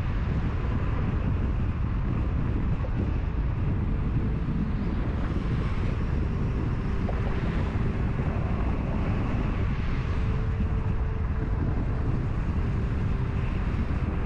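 Wind buffeting the microphone over a steady rumble of road traffic.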